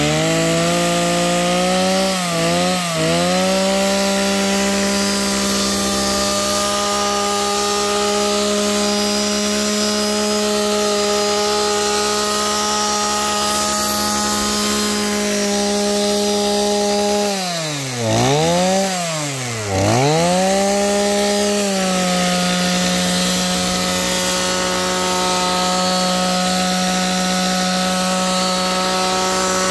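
Kawasaki TH34 34 cc two-stroke brush cutter engine held at high throttle with a steady high buzz. It dips briefly about two seconds in, then twice around eighteen to twenty seconds the revs drop sharply and climb back before holding steady again.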